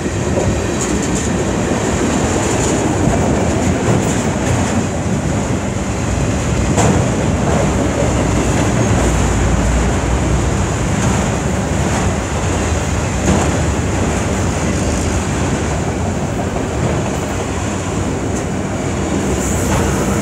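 Freight train cars rolling past at close range, tank cars and then autorack cars: a steady rumble of steel wheels on rail with scattered sharp clicks and clanks.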